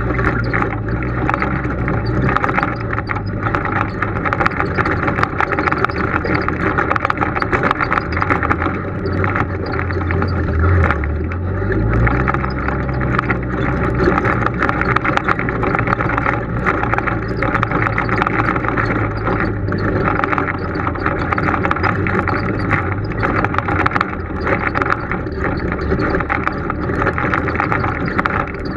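Polaris RZR side-by-side's engine running at low trail speed over rough ground, with frequent rattles and knocks from the vehicle jolting over rocks. The engine note rises and falls briefly about ten to twelve seconds in.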